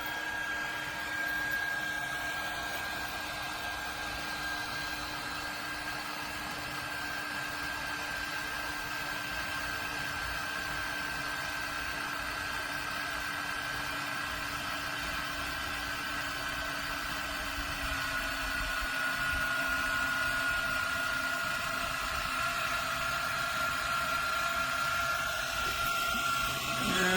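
12V electric car jack's motor running steadily as it lifts a truck, a steady whine that drops slightly in pitch about two-thirds of the way through.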